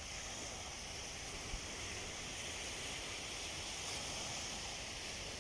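Steady, even wash of small sea waves on a sandy shore.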